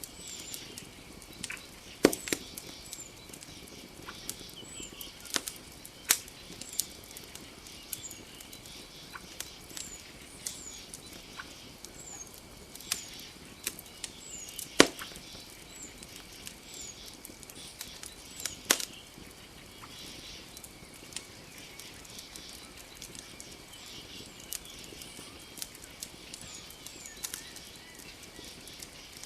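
Campfire crackling, with sharp irregular pops that are loudest about two seconds in and midway through. Behind it runs a steady high insect drone, with short, high, falling chirps repeating roughly once a second.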